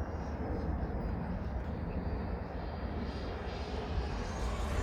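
Electric ducted-fan jet of a radio-controlled F-22 model in flight: a steady rushing sound with a faint high whine that drifts slowly in pitch.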